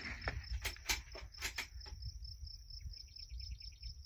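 Crickets chirping steadily in a high, pulsing tone, with a brief rapid trill about three seconds in. Several sharp clicks sound in the first two seconds.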